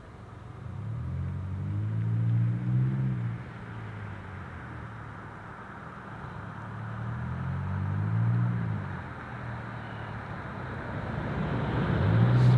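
Vehicles driving past, three in turn, each a low engine hum that swells and fades as it goes by, its pitch bending as it passes.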